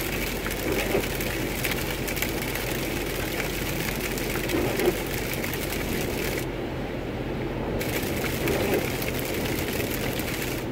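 Rain hitting a car's windshield and body as a dense run of small ticks over steady engine and tyre noise on a wet road, heard inside the cabin. The rain ticks stop for about a second a little over halfway through while the car passes under an overpass, and one sharper tick stands out near the middle.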